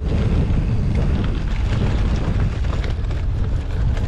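Wind buffeting the camera microphone while cycling, a loud, steady low rumble.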